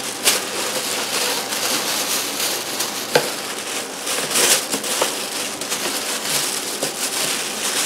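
Crinkling and rustling of packaging being handled, with a few sharp clicks.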